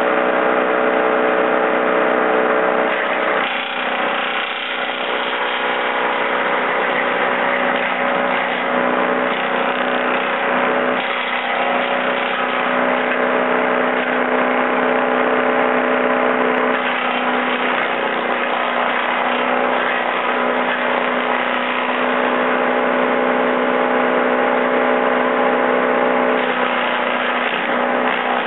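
Wallenstein BXM32 PTO-driven wood chipper running at full speed off a Kubota L3200 diesel tractor, chipping cedar branches. A loud, steady drone from the tractor engine and chipper rotor, which changes in tone a few times as branches are fed in and chewed through.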